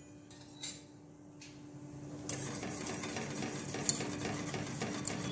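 Wire whisk stirring hot chocolate milk in a stainless steel pan: metal scraping and swishing against the pan that starts about two seconds in and goes on steadily, after a couple of faint clicks.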